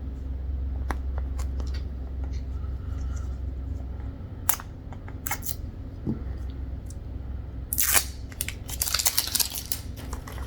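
Packaging and product containers being handled: scattered small clicks and taps, then a quick run of sharp rustling, tearing noises about eight seconds in. A steady low hum sits underneath.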